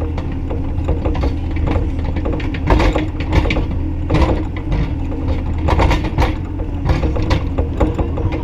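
Bobcat E35i compact excavator's diesel engine running steadily, with irregular metallic clanks and rattles from the working machine over it.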